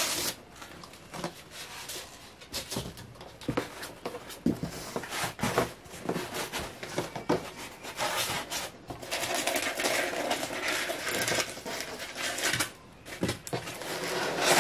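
Cardboard box being rummaged through while unpacking: scraping, scattered knocks and rustling, with a longer stretch of steady rustling about nine seconds in as packing material is handled.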